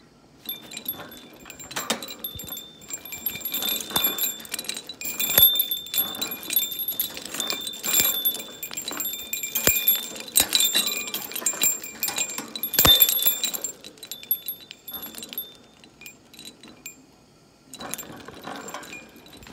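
A pet bird plays with a hanging cage toy: a small metal bell jingles and rings over and over among knocks and rattles of the toy. It goes quieter for a few seconds near the end, then picks up again.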